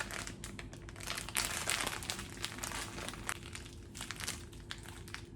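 Plastic grocery packaging crinkling and rustling in irregular crackles as items are handled and taken out.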